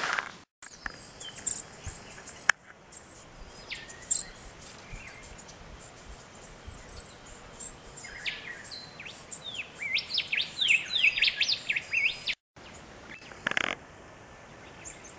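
Wild birds chirping and calling in bushland, with thin high chirps throughout and a dense run of quick, sweeping calls in the middle of the clip. A single sharp click early on and a short rustle near the end.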